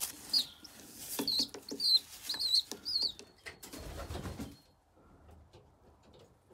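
Pigeon squabs squeaking: a string of short, high peeps over the first three seconds, the begging calls of young pigeons being fed, with scattered rustles and a low thump about four seconds in before the loft goes almost quiet.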